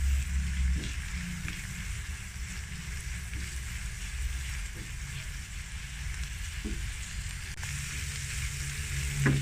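Diced onion sizzling steadily in melted butter in a nonstick frying pan, stirred with a silicone spatula that scrapes the pan now and then, over a low steady hum. A brief knock of the spatula near the end.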